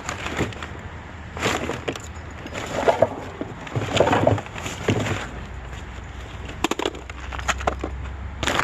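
Irregular knocks, clatter and rustling, like objects being handled and shifted.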